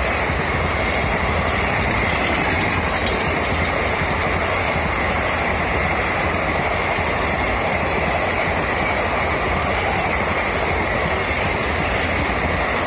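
Indian Railways express train's passenger coaches passing at speed: a steady rumble and roar of wheels on the rails.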